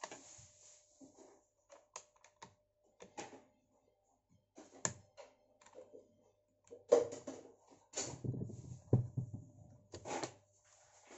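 Plastic clicks, taps and rattles from handling a USAMS iPad Pro holder: the clamp knob is turned and the tablet taken out of the clamp, with a run of louder knocks and clunks in the second half.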